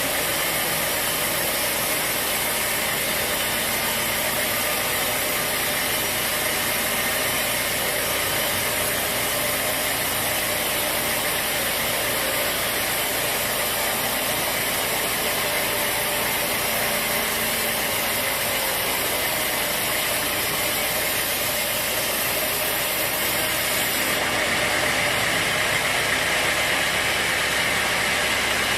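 Sawmill saw and its motor running steadily, cutting mahogany logs, a dense continuous machine noise that grows slightly louder and hissier near the end.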